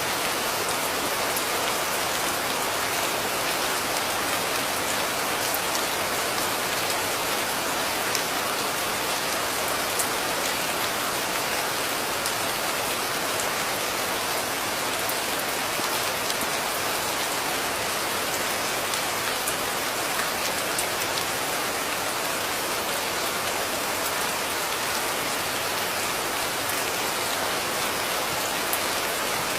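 Steady rain: an even, unbroken hiss of falling rain with scattered sharper drop ticks, and no thunder.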